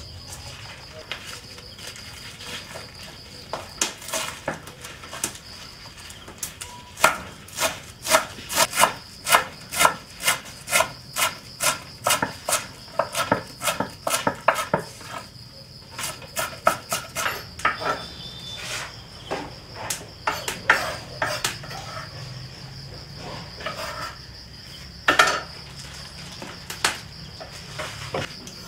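Insects chirring steadily on one high note, with sharp knocks over it. About a quarter of the way in, the knocks come in a regular run of about two a second; after that they fall irregular and sparse.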